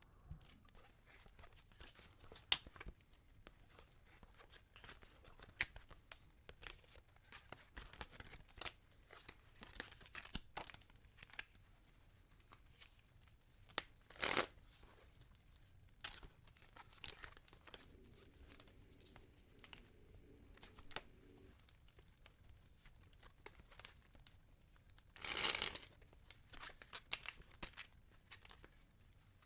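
Tarot cards being shuffled by hand: soft rustling and light clicks of the cards, with two louder brief riffling bursts, one about halfway through and one near the end.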